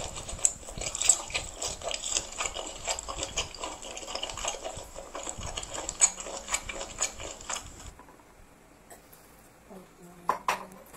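Close-up slurping and chewing of spicy instant noodles, a dense run of wet smacking for about eight seconds before it drops away to quiet chewing.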